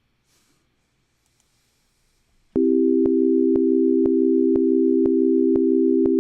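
Steady electronic tone of a few close low pitches played back from a Logic Pro software instrument, starting about two and a half seconds in. A sharp click cuts through it about twice a second: an unwanted clicking in the playback whose cause is unknown.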